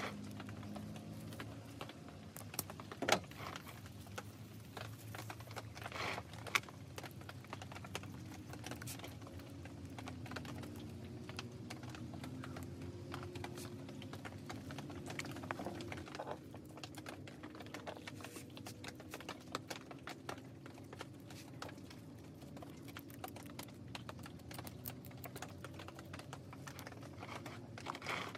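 Crackling and small clicks of hands working loose potting soil around roots and a rock, with a couple of sharper knocks about three and six seconds in.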